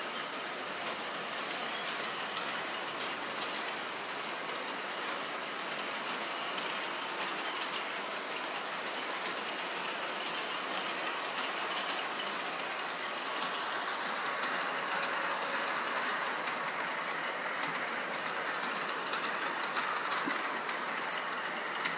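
Large-scale model trains running on their track: a steady whir of wheels and motor gearing with light clicking as the wheels pass over rail joints, growing a little louder about two-thirds of the way through, and one sharp click near the end.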